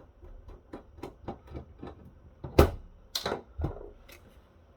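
Irregular small clicks and taps of tools and small parts on a 3.5-inch floppy drive's circuit board and metal frame as the board is worked loose, with three louder knocks a little past halfway.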